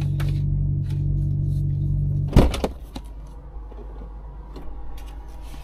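Lorry's diesel engine idling, heard from the cab, then switched off about two and a half seconds in with a loud clunk as it stops; afterwards only faint clicks and rustles.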